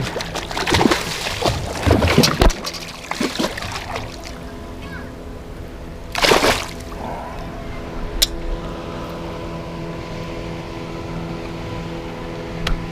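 Hooked bass splashing at the surface as it is fought and landed, with knocks and rattles of handling and one big splash about six seconds in. A steady hum of several tones comes in after that, with a couple of sharp clicks.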